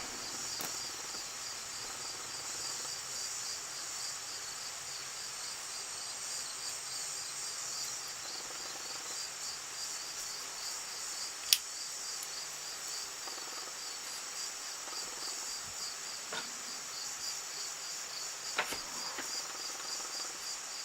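Crickets chirping steadily in an even, rapid pulse, with one sharp click a little past halfway and a couple of faint clicks near the end.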